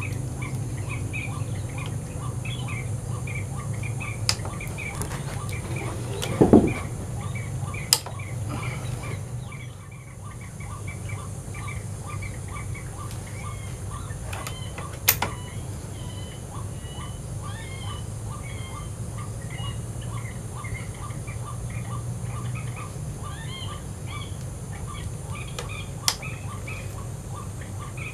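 Birds calling: a quick, evenly repeated note runs on throughout, with other chirps over it and a low steady hum beneath. A single thump about six and a half seconds in is the loudest sound, and a few sharp clicks follow later.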